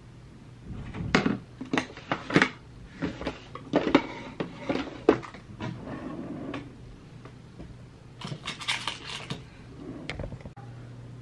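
Makeup tools and small objects being handled and set down on a desk: irregular clicks, taps and light clatters, with some rustling near the end.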